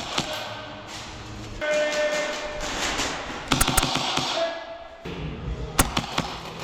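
Background music with sharp, single airsoft gun shots: a couple near the start, a quick cluster about three and a half seconds in, and two more near the end.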